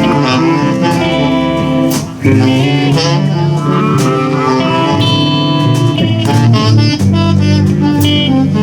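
Live blues band playing an instrumental passage: electric guitars over bass and drums, with saxophone. The band drops out briefly about two seconds in, then comes straight back.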